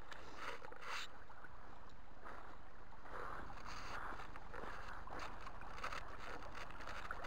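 Shallow stream water running steadily over a gravel bed.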